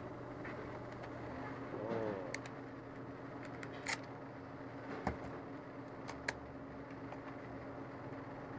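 Steady low hum with a few sharp, separate clicks, about a second apart, in the middle.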